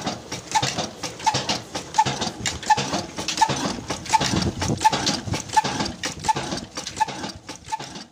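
A slow-running Ruston Hornsby-type single-cylinder stationary diesel engine with a heavy flywheel, running steadily. It gives a regular knock about three times every two seconds, with valve-gear clatter in between.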